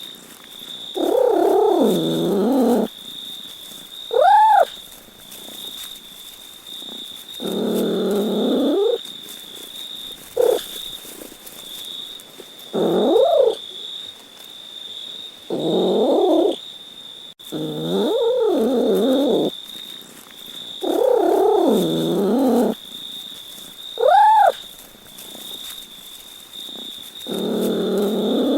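A cat meowing over and over, about ten calls a couple of seconds apart: some long, drawn-out meows and some short ones that rise and fall in pitch, over a faint steady high whine.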